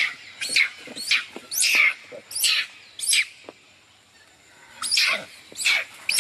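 Baby monkey screaming in distress as an older juvenile monkey attacks it: a string of short, shrill, high-pitched screams, about two a second, breaking off for a second or so midway and then resuming.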